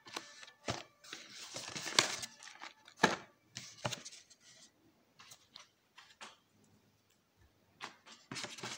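Cardboard boxes handled by hand: rustling and scraping of cardboard with a few short knocks, busiest in the first four seconds and again near the end, with only light clicks in between.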